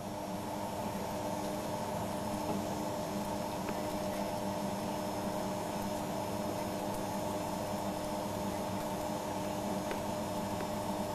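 A boat's machinery running with a steady hum, several held tones over an even hiss.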